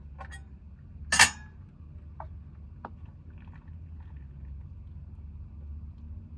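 One loud, sharp clatter about a second in, with a few light clicks after it, from cookware being handled, over a steady low rumble.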